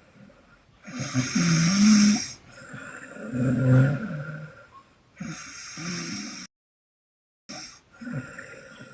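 A woman snoring loudly with open-mouthed puffing breaths: four long snores, each a low, wavering rumble with a breathy hiss. The sound cuts out completely for about a second about two-thirds of the way through.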